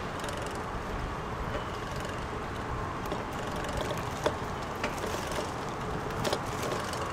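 Steady noise of a car driving, with a few brief clicks and knocks, the sharpest about four seconds in.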